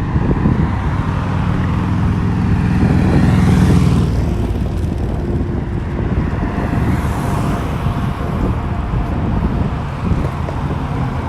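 Road traffic: motor vehicles passing with engine rumble and tyre noise, swelling to a louder pass a few seconds in.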